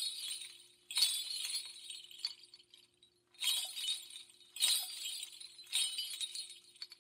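Glassy crash sound effect: five bright, sharp hits, each ringing away over about a second, spaced a second or so apart with a longer gap in the middle. A faint steady hum sits underneath.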